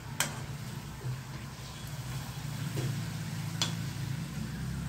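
Chorafali strips deep-frying in hot oil in a metal kadai, a steady sizzle under a low hum. A metal slotted spatula clinks against the pan twice, just after the start and about three and a half seconds in.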